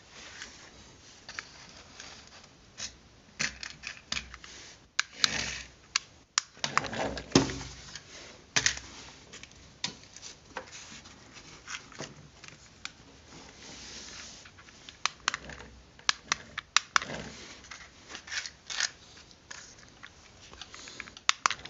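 Irregular clicks, taps and short scraping sounds as a small cardboard RC car and its parts are handled during a test, with a few louder scrapes scattered through.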